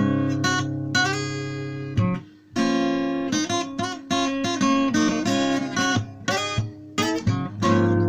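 Acoustic guitar played alone, a run of chords and single notes that ring on one after another, with a short break about two and a half seconds in.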